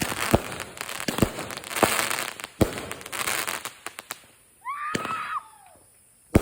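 Consumer fireworks going off: several sharp bangs with crackling, dying down about four seconds in. A brief high wavering tone follows about five seconds in, then one more loud bang at the very end.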